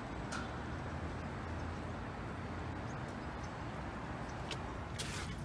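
A steady low background noise, with a few sharp clicks and, near the end, crunching as a foot steps out onto a thick layer of hailstones on pavement.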